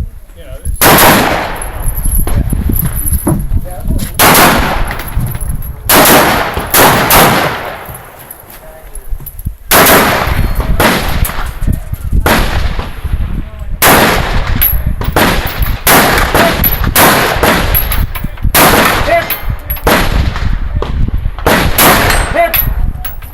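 Rifle fire during an action rifle stage: a string of about twenty single shots, fired half a second to two seconds apart, with a gap of about two seconds partway through.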